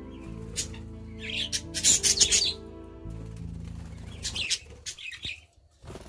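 Budgerigars chirping in short bursts, loudest about two seconds in and again near the end. Soft background music with held low notes runs underneath and stops about two-thirds of the way through.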